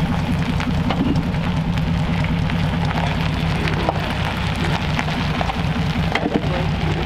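1939 Ford coupe's engine idling steadily through its newly built small-pipe dual exhaust, with a low, even burble.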